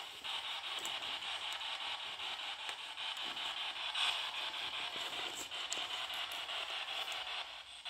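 Spirit box, a radio scanner sweeping rapidly through the stations, giving out steady hissing static chopped into quick even steps.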